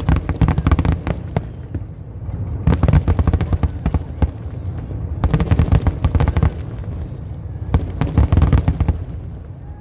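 Fireworks crackling and popping in four dense volleys of rapid sharp pops, roughly two seconds apart, over a low rumble.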